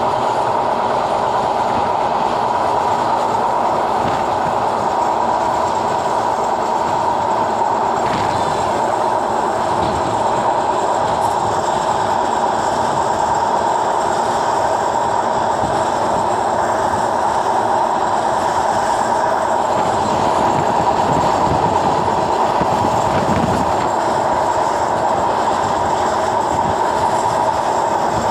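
Passenger train running steadily at speed, heard at an open carriage window: a continuous loud rush of wheels on rails, with a steady droning note over it.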